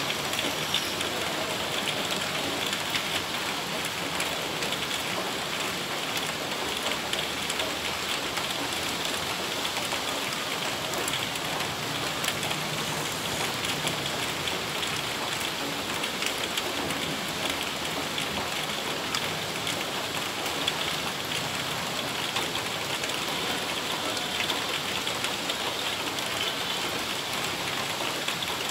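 Heavy rain pouring down steadily, a dense, unbroken patter of drops.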